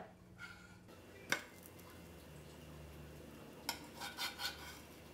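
Small metal spatula clicking and scraping against an electric griddle while flipping pancakes: one sharp clack about a second in, then a few quick clatters near the end.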